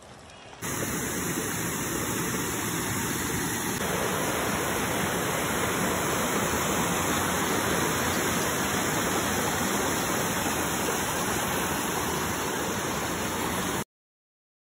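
Steady rushing of a mountain stream over rocks, loud and even, cutting off suddenly near the end.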